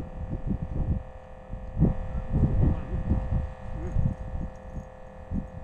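Wind buffeting the microphone of a camera set low on open ice: uneven low rumbling thumps, strongest about two to three seconds in, over a steady faint hum.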